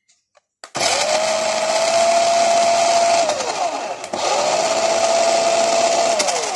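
A toy RC car's electric drive motor and gears whining in two runs. Each run spins up quickly to a steady high pitch, holds it for about two and a half seconds, then winds down.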